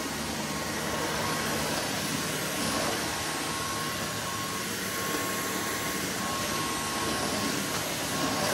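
Dyson V15 Outsize cordless stick vacuum running steadily, a rushing hiss with a thin high whine, as its floor head is pushed back and forth across a hard wooden floor.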